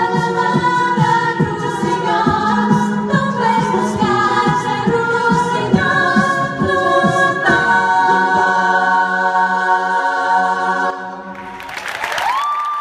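Mixed vocal group singing in harmony through microphones over a steady low beat. The song ends on a long held chord that cuts off about eleven seconds in, and applause starts near the end.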